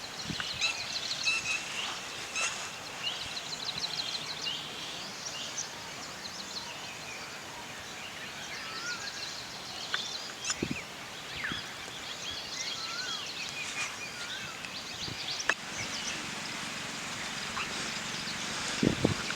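Several small birds chirping and calling, with quick trills and short rising and falling whistles, over a steady outdoor background; a few sharp clicks stand out, around ten seconds in and near the end.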